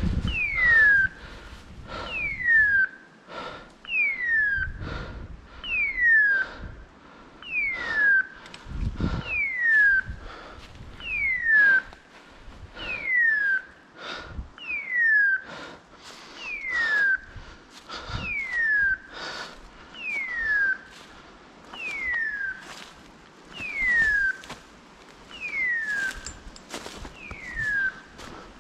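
Hunting dog's beeper collar sounding a short, falling whistle-like tone about every two seconds, the regular signal such a collar gives while the pointer stands on point. Footsteps rustle through dry fallen leaves in between.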